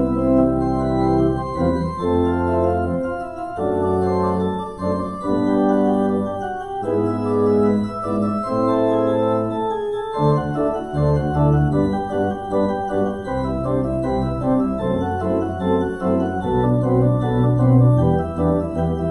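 Organ music of held chords over a bass line, the chords changing every second or two and moving more busily from about halfway through.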